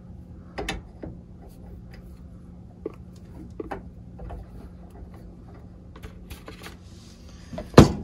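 Small clicks and metal taps of a brass fitting being threaded by hand back onto the Y-strainer of a heat pump's water line, over a steady low hum. One sharp knock near the end is the loudest sound.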